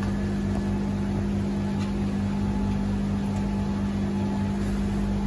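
Steady mechanical hum, one strong low tone with a faint regular pulsing underneath, unchanging in level.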